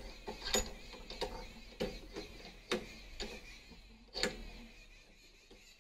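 A handful of sharp metallic clicks and knocks, irregularly spaced about half a second to a second apart, from the nut on a power weeder's 90-degree swivelling handle being loosened and the handle being worked.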